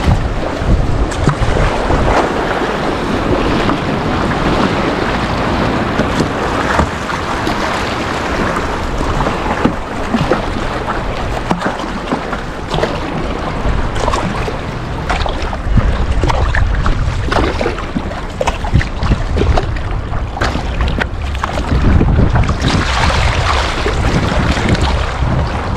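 Kayak on moving river water: rushing and splashing water with irregular sharp splashes, and wind buffeting the microphone in a low rumble that swells now and then.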